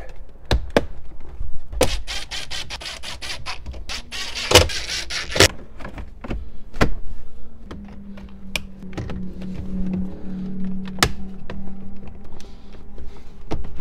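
Plastic dash trim and a double-DIN radio being pressed into a car dash, giving a string of sharp plastic clicks and knocks as the clips snap home. There is a dense run of clicks a couple of seconds in, and a steady low hum for a few seconds past the middle.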